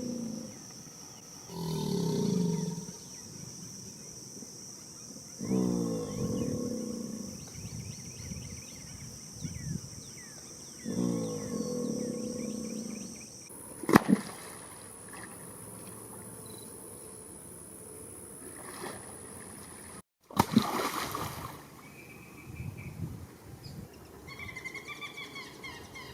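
American alligator bellowing: three low, pulsing rumbles, each about two seconds long, spaced about four to five seconds apart. A single sharp smack comes about fourteen seconds in.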